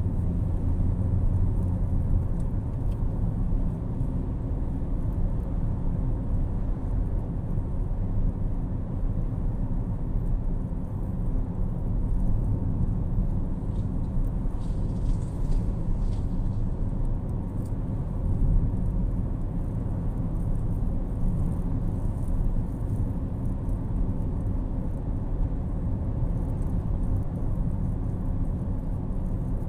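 Steady low rumble of a car's tyres and engine at road speed, heard from inside the cabin, with a brief hiss about halfway through as oncoming traffic goes by.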